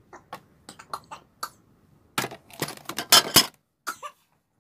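Hard plastic bathroom-accessory pieces clicking and knocking as they are handled in their box, with a louder stretch of clattering and scraping about two to three and a half seconds in.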